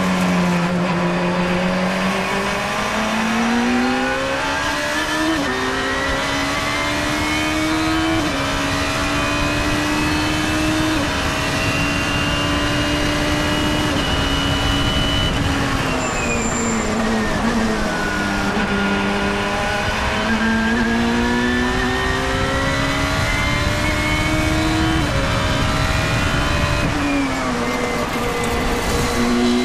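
Sports-racing car's engine heard from the cockpit under hard acceleration: the revs climb and step down at a couple of upshifts in the first few seconds, hold high on the straight, fall steeply under braking about halfway through, then climb again with another shift near the end.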